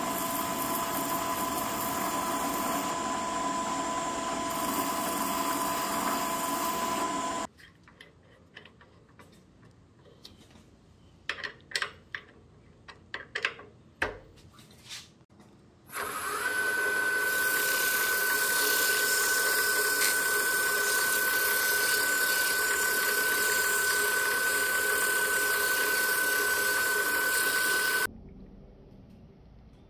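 Benchtop drill press running with a small abrasive surface-prep disc on a mandrel, a steady motor whine that stops about a quarter of the way in. Then a few clicks and knocks of handling. About halfway the drill press starts again, its whine rising in pitch and then holding steady until it shuts off near the end.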